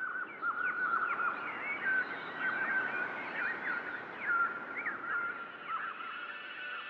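Many small birds chirping and twittering at once, a dense chorus of short, quick calls over a background hiss.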